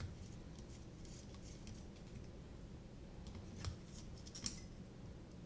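Faint, scattered small metallic clicks and scrapes of a hex screwdriver backing out the screws of a quadcopter's top plate, with a couple of sharper clicks past the middle.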